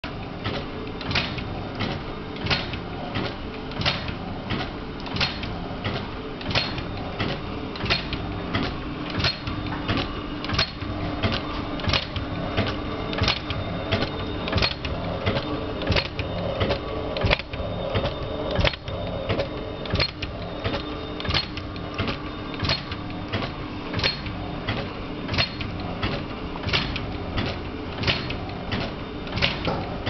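Headphone-cord swing-test rig running, flexing the cord at its USB plug: a steady machine hum with sharp clicks at an even rhythm, about three every two seconds.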